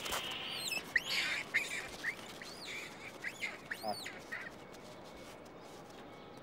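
Monkeys giving a rapid series of shrill, arching screams, which die away after about four and a half seconds.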